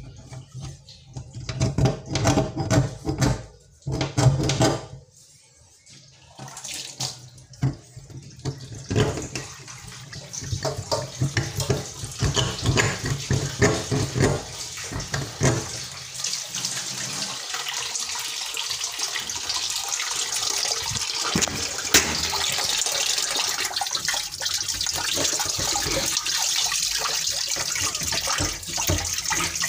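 Tap water running into a stainless steel kitchen sink and down the drain, a steady hiss that builds up from about the middle on. Before that come irregular knocks and splashes as a flexible drain-unclogging tool is worked in the drain.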